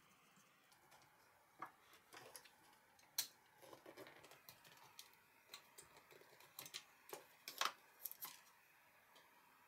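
Faint scattered clicks and short scrapes of small metal and plastic parts being worked by hand on a wooden board: a screwdriver on a screw through a ball bearing, and a utility knife working a plastic wall plug off the screw. The sharpest clicks come about three seconds in and again around seven and a half seconds in.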